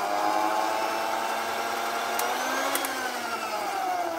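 Motor of a roughly 40-year-old Philips electric hand mixer running with its beaters fitted, on a test run after reassembly: a steady whine with several tones. Two sharp clicks come about two and a half seconds in, after which the pitch slowly falls.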